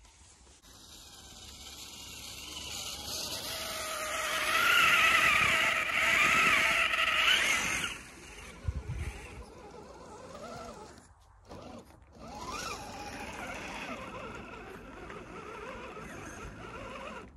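Electric motors and gear drives of radio-controlled scale crawlers whining as they push through deep snow. The whine grows louder over the first few seconds to a peak, drops back about eight seconds in, then carries on more quietly, its pitch rising and falling with the throttle.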